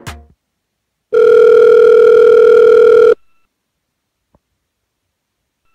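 Telephone ringback tone, the line ringing while a call waits to be answered. A steady buzzy tone sounds for about two seconds, stops, then starts again near the end.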